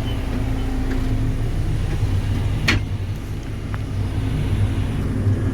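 JCB 3CX backhoe loader's diesel engine running steadily, with one sharp click about two and a half seconds in.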